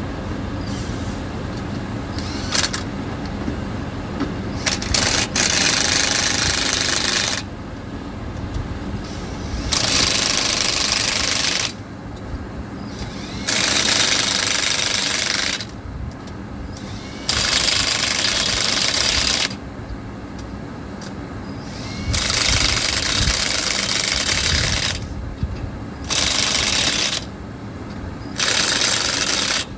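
Impact wrench running lug nuts onto the spare wheel, in about seven bursts of one to three seconds each with short pauses between.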